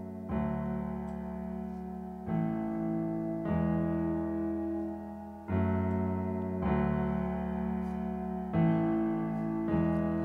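Slow keyboard intro to a worship song: sustained piano chords, each changing to the next every one to two seconds.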